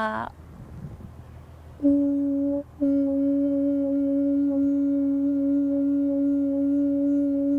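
A woman's voice ends a sung syllable, then about two seconds in begins one long, steady vocal tone on a single note: the vowel U being voiced as a sound study. It breaks off briefly once, just under a second after it starts, then is held without wavering.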